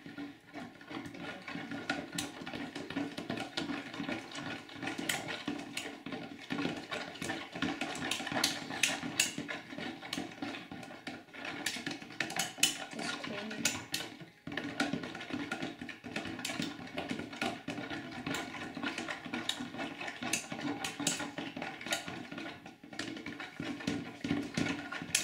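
Metal spoons stirring thick glue and green food dye in a plastic bowl, with irregular clinks and scrapes against the bowl throughout.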